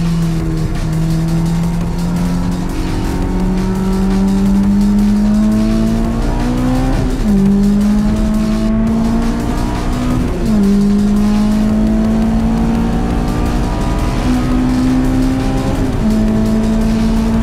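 Honda S2000's four-cylinder engine at high revs on track, its pitch slowly climbing under power. It dips sharply three times, about seven, ten and sixteen seconds in, as it shifts up.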